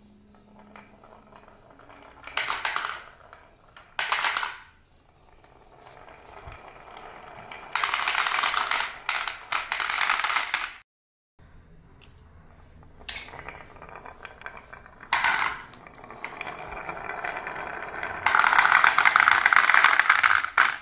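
Glass marbles rolling down a wavy wooden track and clattering into the plastic bed of a toy truck, clinking against one another. They come in several bursts of rattling, with the longest and loudest near the end.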